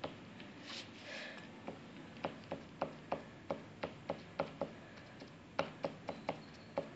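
Felt-tip marker tapping dots onto a sheet of paper: about fifteen short, light taps, roughly three a second, with a brief pause partway through.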